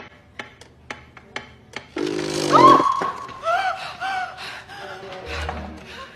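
Orchestral film-score music: a few light ticks in the first two seconds, then a sustained melody with sliding, wavering notes over a lower chord.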